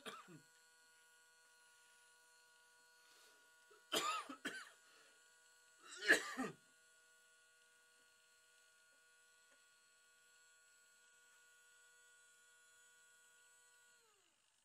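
Steady electric hum with several pitched tones from a small motorised display turntable turning the stone; near the end it slows, dropping in pitch, and stops. A person coughs at the start, twice around four seconds in and once more, loudest, about two seconds later.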